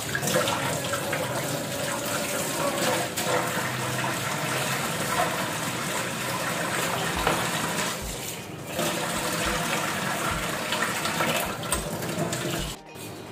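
Water from a kitchen tap running into a steel sink as dishes are rinsed and the sink is wiped down, with a few small knocks of handling. The water sound drops away shortly before the end.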